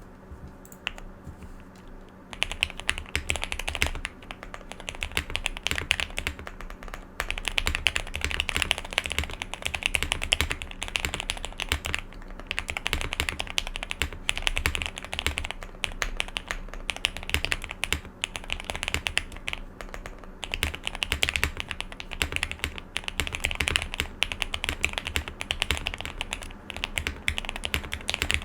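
Owlab Mr. Suit TKL mechanical keyboard with SP-Star Meteor White switches, aluminium plate, PE pad and PBT keycaps being typed on fast and continuously, starting about two seconds in. The keystrokes have a poppy sound.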